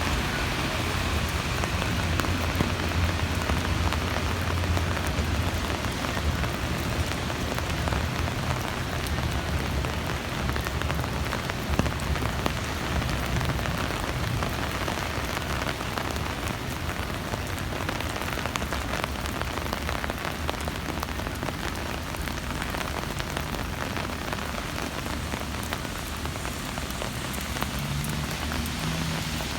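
Heavy rain falling steadily: an even hiss with many separate drop impacts, over a low hum that is stronger in the first half.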